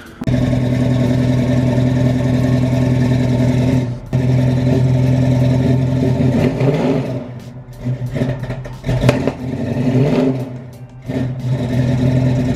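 Dodge Challenger engine running at the tailpipe, idling steadily at first. In the second half the idle turns uneven, with the engine note dipping and picking up again and a few short blips.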